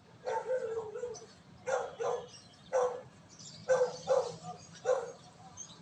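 A dog barking in a series of about seven short barks, the first a little drawn out.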